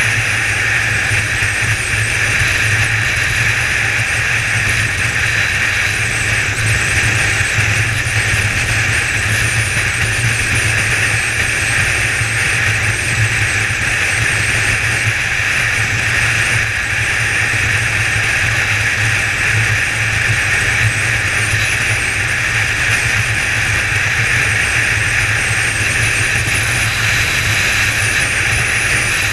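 Kawasaki ZZR1400's inline-four engine pulling at a steady cruise, mixed with constant wind and road rush. The note holds even throughout, with no gear changes or revving.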